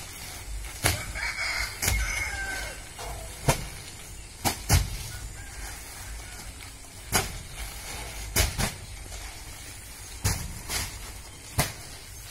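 Sacks of shrimp feed dropped one after another onto a stack as they come off a truck: about ten dull thuds at uneven intervals. A rooster crows once, about a second in.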